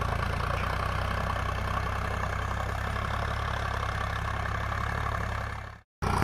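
Sonalika DI 745 tractor's three-cylinder diesel engine running steadily under load as it pulls a disc plough through the soil. The sound cuts off abruptly near the end and the engine returns a moment later.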